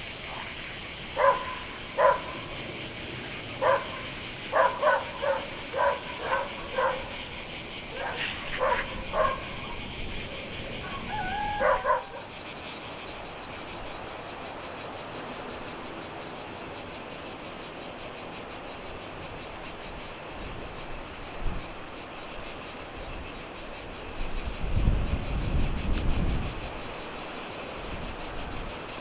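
Steady pulsing chorus of chirring insects, with a second, higher-pitched insect joining about twelve seconds in. A dog barks a dozen or so times during the first twelve seconds, and a brief low rumble comes near the end.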